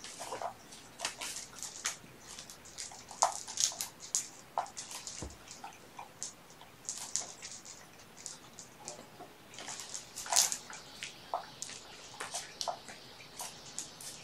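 Kittens scrabbling and rustling about in play: irregular short scratchy sounds and light taps, busiest about three to four seconds in and again around ten seconds in.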